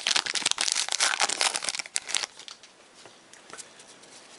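Baseball card pack wrapper crinkling and tearing as a pack is ripped open. The dense crackle runs for about two seconds, then stops, leaving only a few faint ticks.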